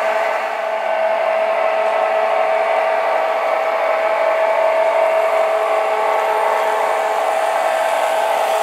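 Electric motors of model trains running around the track: a steady, high motor whine over a rushing hiss.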